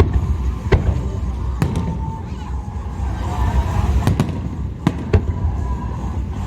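Fireworks show: aerial shells bursting in a scattered run of sharp bangs, some in quick pairs, over a continuous low rumble.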